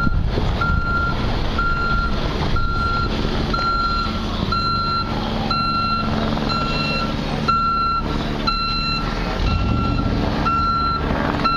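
A vehicle's reversing alarm beeping steadily about twice a second, over the low rumble of an idling engine.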